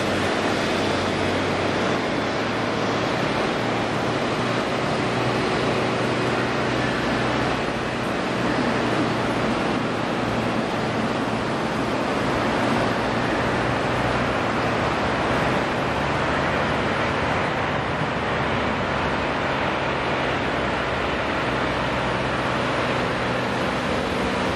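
Jet noise from a landing Boeing 777-300ER's two GE90-115B turbofan engines: a steady rushing noise with a faint hum underneath.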